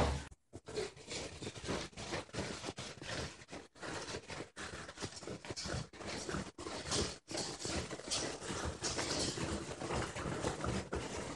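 Thin one-ply toilet paper being pulled off the roll and bunched up by hand close to the microphone: a constant run of soft, irregular crinkles and little taps.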